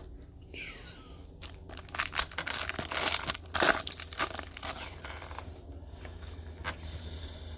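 Foil trading-card pack being torn open and crinkled: a flurry of crackling that starts about two seconds in and lasts a couple of seconds, over a low steady hum.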